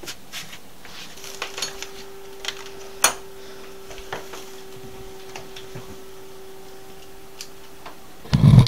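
Metal hand tools clinking and clattering as they are rummaged through on a cluttered shelf, with a sharp click about three seconds in and a faint steady hum under most of it. A loud, dull thump comes near the end.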